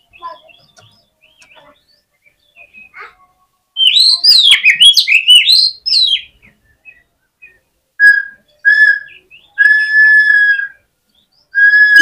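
Oriental magpie-robin (kacer) in full aggressive song. A few faint chirps are followed about four seconds in by a loud, fast run of rising-and-falling warbled notes. Later come four level whistled notes at one pitch, the last held about a second.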